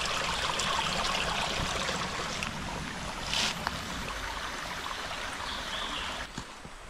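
Jungle stream flowing and trickling steadily, with a brief louder rush of water a little past the middle; the water sound drops away near the end.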